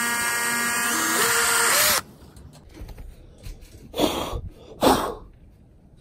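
Makita electric drill running a 1/8-inch bit through the boat's gunwale to make a pilot hole: a steady motor whine that shifts in pitch about a second in and stops suddenly about two seconds in. Two short bursts of noise follow, near four and five seconds.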